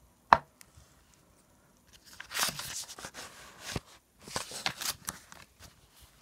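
Scratchy rustling of paper and pen being handled during drawing, in two bursts of a second or so, with a sharp click about a third of a second in.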